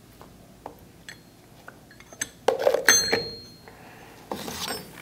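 Steel clamp-kit parts, studs and strap clamps, clinking and knocking against each other and their plastic rack as they are handled. A few light clicks, then a louder clatter about halfway with a brief metallic ring, and another clatter near the end.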